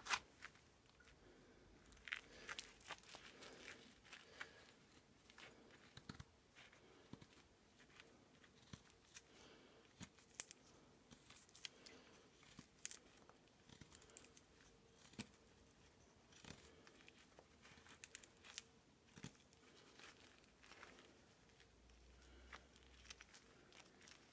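XC75 carbon-steel neck knife shaving and whittling a stick of wood: a string of short, irregular scraping cuts, quiet overall, with a few sharper ones.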